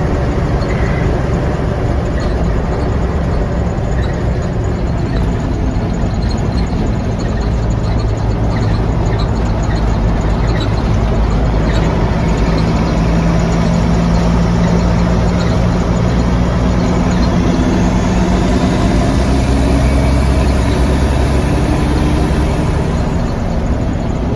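Mack B-61 truck's diesel engine running under way on a test drive of its freshly repaired injection pump. The engine note climbs gradually through the middle and eases off again near the end.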